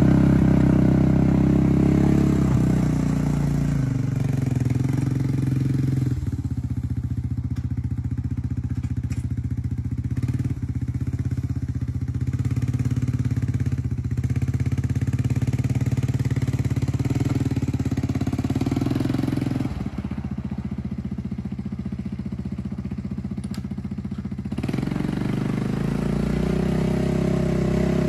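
ATV engine running as the quad tows a small dump cart over a gravel driveway, fading as it drives away and growing louder again as it comes back near the end.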